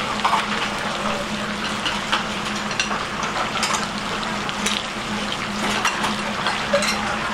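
Busy street-kitchen noise: a steady watery hiss with scattered clinks of dishes and utensils over a steady low hum.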